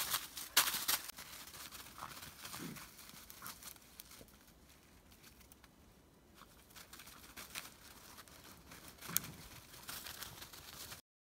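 Briard puppies' paws rustling and crunching through dry fallen leaves, in loose crackling bursts that are loudest in the first second and again about nine seconds in; the sound stops abruptly just before the end.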